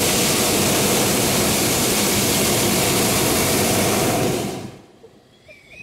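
Hot-air balloon's propane burner firing: a loud, steady roar that cuts off sharply about four and a half seconds in.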